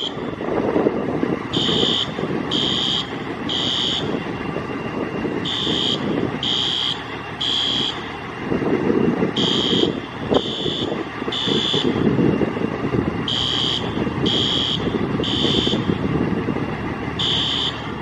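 An electronic alarm beeping in the three-beep pattern, three even high beeps then a pause, repeating about every four seconds, over a steady rumble from a large vehicle engine running, typical of fire apparatus.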